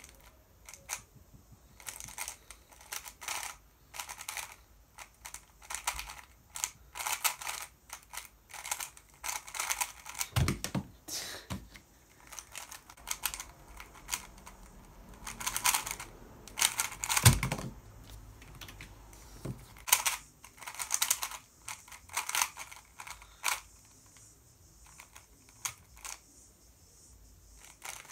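3x3 Rubik's cube being turned quickly by hand: bursts of rapid plastic clicking as the layers snap round, broken by short pauses. Two dull thumps stand out, about ten seconds in and again a few seconds later.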